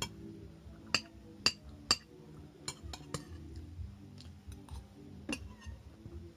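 Metal spoon clinking against a ceramic plate while eating rice and fish: a string of sharp separate clinks, the loudest three in quick succession about a second in, and a last one near the end.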